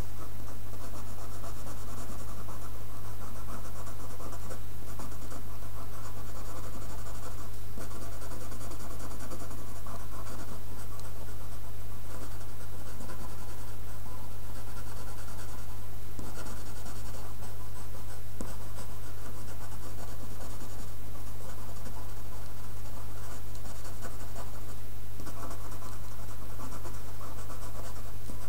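Coloured pencil scratching on paper as shading strokes are laid down, over a steady low hum.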